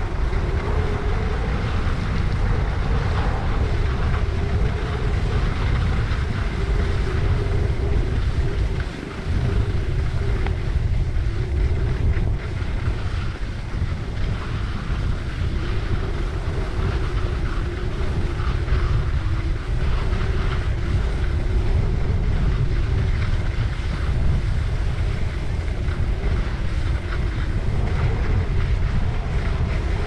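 Wind rushing over a helmet-mounted GoPro microphone during a downhill ski run, a steady low rumble, with the hiss of skis sliding and scraping on snow. The rush drops briefly about nine seconds in.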